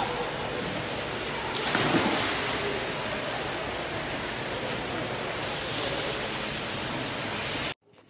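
A splash about two seconds in as a boy jumps into an indoor swimming pool, over a steady rushing hiss of pool water. The sound cuts off suddenly near the end.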